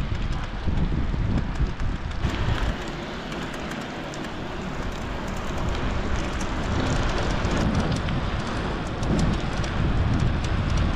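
Heavy rain and a bicycle's tyres on wet asphalt, with wind rumbling on the microphone; from about two seconds in, fine ticks of drops are heard over the hiss.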